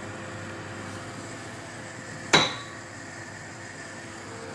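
A single sharp metallic clink with a brief ringing, about two seconds in, from the oven's wire grill rack and metal drip tray being handled as fish is laid on it. A steady low hum runs underneath.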